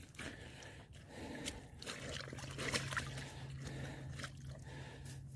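Faint splashing, dribbling and squelching of hands working wet mud and shallow water at a lake's edge, in scattered small, irregular sounds.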